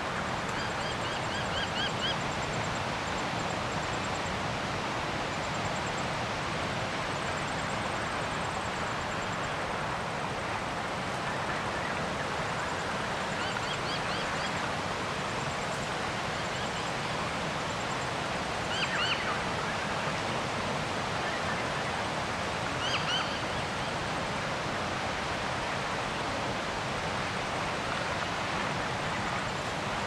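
Steady rushing outdoor noise with wild birds calling over it: short quick runs of high chirps about four times, and a faint, very high twittering that repeats through the first half.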